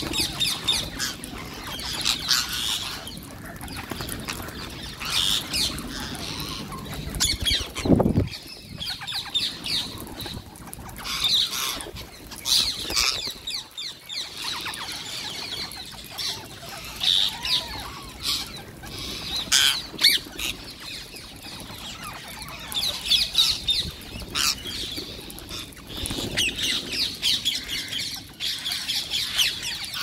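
A large flock of rose-ringed parakeets calling, a dense chatter of shrill screeches and squawks, with wingbeats as birds fly in and out. A brief low thud about eight seconds in.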